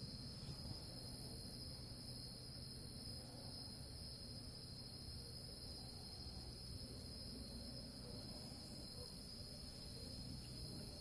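Crickets chirring steadily in high, unbroken bands, with a faint low rumble underneath.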